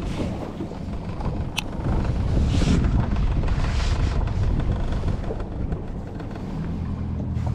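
Wind rumbling on the microphone aboard a small boat on open water. There is a sharp click about a second and a half in, and a steady low hum comes in near the end.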